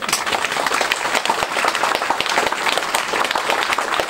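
Applause from a small crowd of people clapping, starting abruptly and holding steady.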